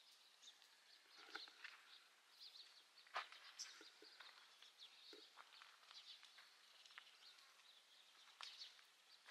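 Near silence of open country, with faint scattered bird chirps and a few soft clicks.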